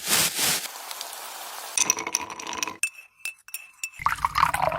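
A string of action sound-effect samples: a loud burst of noise that dies away over about a second and a half, then short ringing, clinking hits and sharp clicks, with a low hum coming in near the end.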